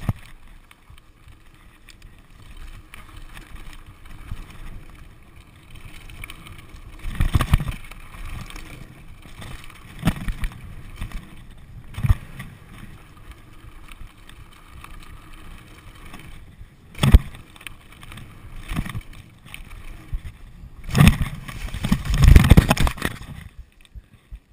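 Giant Trance 650b mountain bike rolling over a dirt forest trail: steady tyre and wind rumble, with sharp jolts and rattles over bumps several times. About 21 seconds in comes a loud run of clattering impacts as the bike crashes into a fence, and then the noise drops away.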